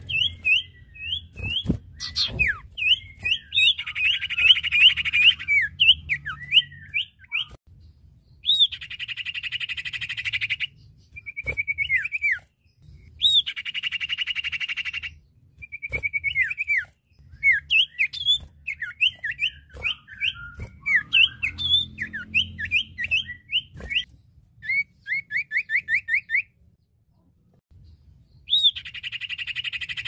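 Ioras (cipoh/sirtu) calling: short chirps that drop sharply in pitch, alternating with buzzy trills of very rapid notes a couple of seconds long. A quick series of repeated notes comes a little before a pause of about two seconds, then a trill starts up again near the end.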